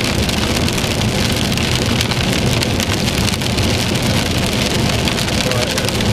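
Heavy rain from a thunderstorm falling steadily, dense with the ticks of individual drops, over a constant low rumble.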